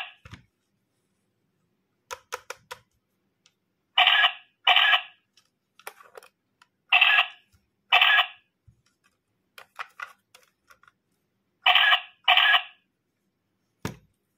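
Pink battery-powered toy camera giving its electronic shutter beep as the button is pressed: short pitched beeps in pairs, three pairs in all, with light plastic clicks of its buttons and handling in between. A dull thump near the end.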